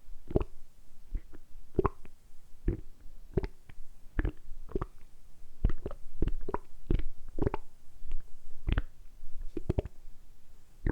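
Human stomach gurgling in a string of short, irregular gurgles, roughly two a second, made on purpose by working the abdominal muscles.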